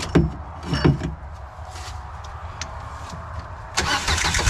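Farm tractor engine idling while its transmission is shifted by hand without a lever, with a couple of sharp metal clunks early on. The sound gets louder and noisier near the end as a gear is found.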